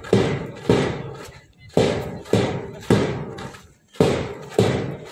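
Marching drum, likely a bass drum, beating a steady parade rhythm of about two strokes a second with an occasional skipped beat, each stroke ringing out.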